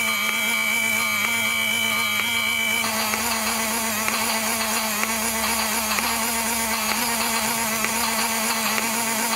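Small battery-powered electric motor of a knockoff Thomas toy's smoke unit, running with a steady hum as it pumps the bellows that push air up through the smoke box; a high whine in it stops about three seconds in.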